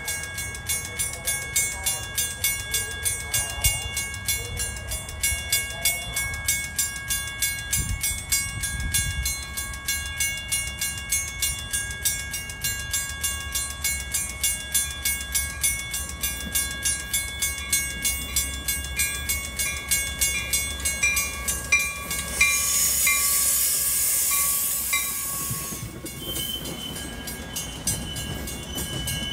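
Railroad crossing bells ring steadily at about three strikes a second while a Metra commuter train of bilevel cars approaches, its rumble growing. About 22 seconds in there is a loud hiss for a few seconds as the train draws alongside, and then its cars rumble past.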